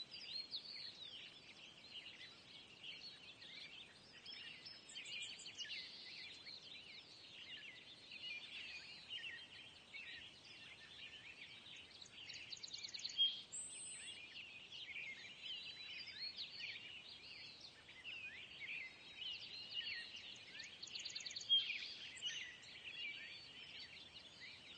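A faint outdoor nature ambience: a dense chorus of many small birds chirping and twittering, with quick trills here and there and a couple of louder calls about halfway through and near the end.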